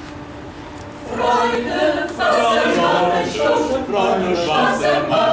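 Vocal ensemble singing a cappella in several parts, the voices coming in about a second in after a moment of faint background.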